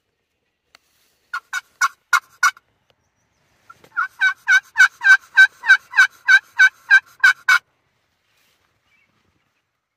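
Turkey yelping: a run of five loud yelps, a short pause, then a longer run of about fifteen, evenly spaced at roughly four a second.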